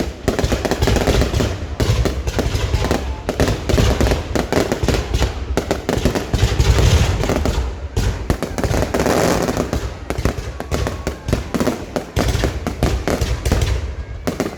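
Fireworks going off in a dense, continuous barrage: many rapid, overlapping bangs and crackles over a low rumble.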